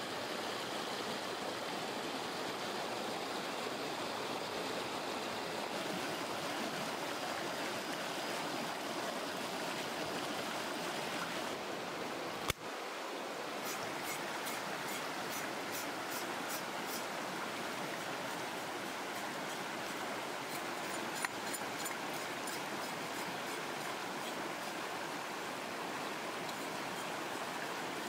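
Shallow, rocky river running over stones: a steady rush of flowing water, with one sharp click about halfway through.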